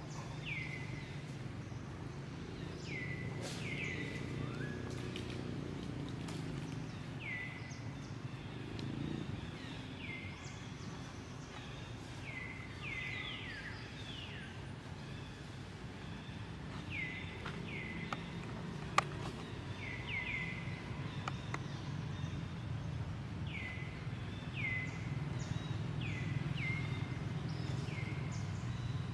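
Repeated short high chirps from a small animal, each sliding down in pitch, coming every second or two and often in pairs or threes, over a steady low hum. There is one sharp click about nineteen seconds in.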